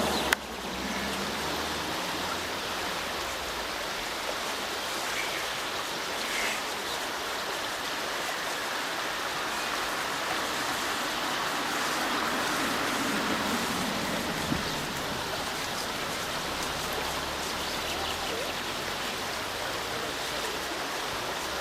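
Steady rushing of flowing water, with one sharp click about half a second in.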